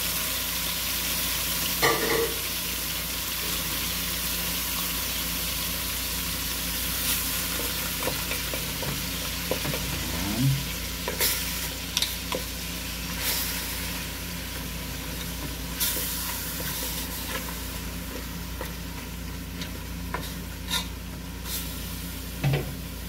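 Lamb chunks sizzling in hot oil in an aluminium pot as they are browned, a steady frying hiss. A wooden spatula stirring and turning the meat knocks against the pot a dozen or so times.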